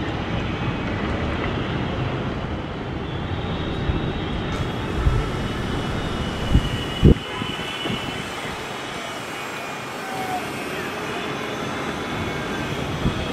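Twin-engine jet airliner on its takeoff roll, heard from a distance as a steady engine rumble. A few dull thumps come about five to seven seconds in.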